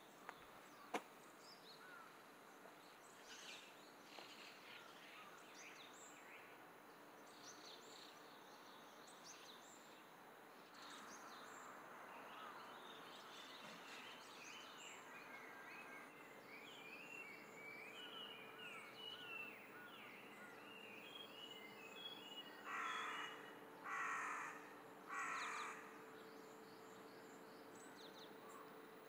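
A crow cawing three times near the end, each call harsh and about a second apart, over faint chirping of small birds and a quiet outdoor hush.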